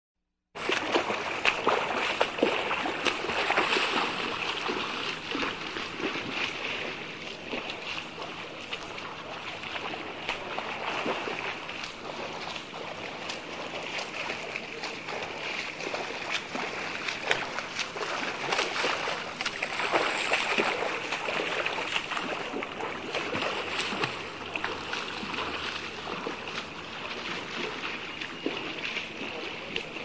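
Swimmers splashing in pool water: a continuous dense churn of many small splashes, starting about half a second in and swelling louder at times.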